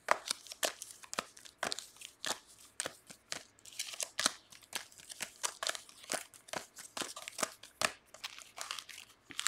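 Foil trading-card pack wrappers crinkling and rustling as hands handle and sort the packs, in quick irregular crackles several times a second.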